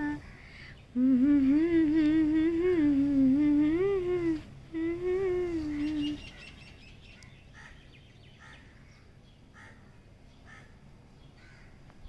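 A woman humming a wavering, vibrato-laden tune in two phrases, from about a second in until about six seconds in. Faint short bird chirps follow.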